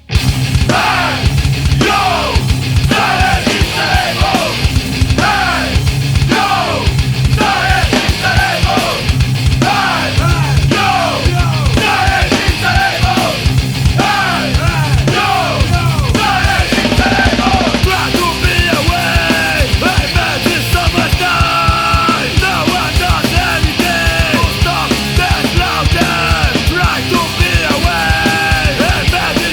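Loud punk or heavy rock music with a steady driving beat.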